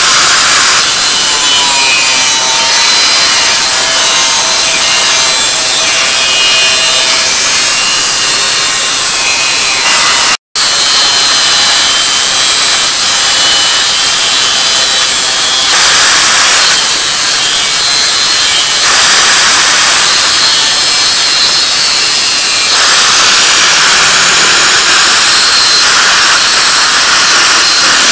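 Angle grinder with an abrasive disc cutting and grinding a rusty flat steel bar: a loud, steady grinding with a motor whine, broken once by a brief dropout about ten seconds in.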